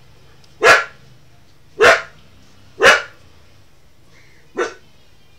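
A dog barking four times, short sharp barks about a second apart, the last one after a slightly longer pause and quieter.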